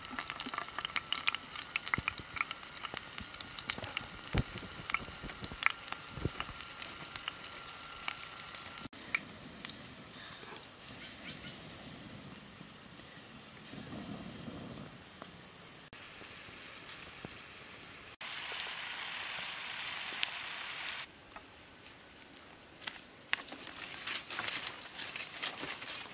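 Water sizzling and popping in a clay pan over a small wood fire, with crackling from the fire. About halfway through, there is a short puff of breath blown at the embers. Rustling near the end.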